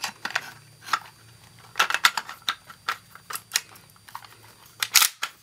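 Irregular metal clicks and clacks from a Mossberg 590 Shockwave pump shotgun being reassembled by hand, as the barrel is slid onto the magazine tube and seated in the receiver. The loudest clacks come about two seconds in and near the end.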